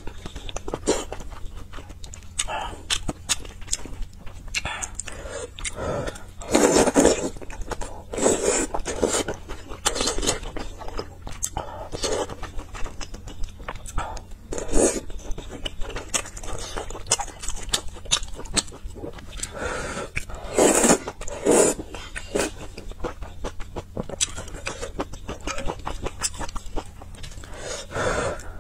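Close-miked eating sounds: a person chewing and slurping spicy stew with noodles and soup-soaked fried dough sticks, in irregular wet bursts, with a few louder slurps.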